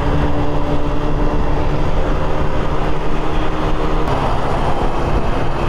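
Yuki Margherita scooter's small engine, bored out from 50cc to 80cc, running steadily at cruising speed under heavy wind and road rumble; its note shifts slightly about four seconds in.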